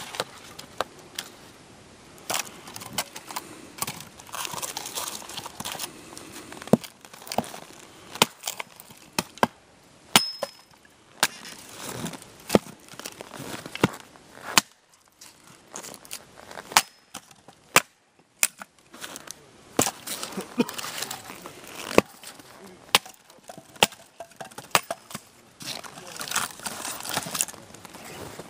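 Axe splitting firewood on a chopping block: repeated sharp knocks and cracks of the blade going into the wood, irregular, roughly one a second, with a brief pause about halfway.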